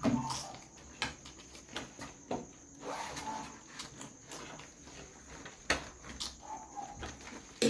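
Eating noises while eating biryani: chewing and mouth smacks with scattered sharp clicks, over a steady high-pitched whine.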